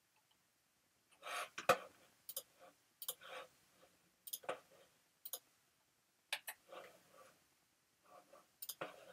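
Faint, irregular clicks of a computer mouse and keyboard, coming singly or in short clusters with quiet gaps between.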